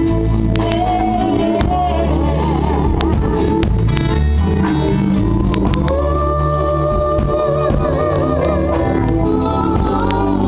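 Live song: a vocal group singing with vibrato over instrumental backing that has a loud, steady bass.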